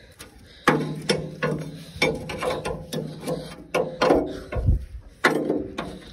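Irregular sharp metallic knocks and scrapes, about ten in a few seconds, some ringing briefly: a hand tool working against the tractor's metal bodywork as caked dirt is cleaned off.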